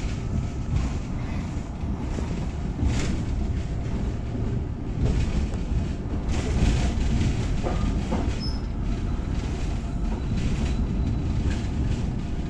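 Train in motion, heard from inside the carriage: a steady low rumble of wheels on the track, with a few brief clatters and rattles.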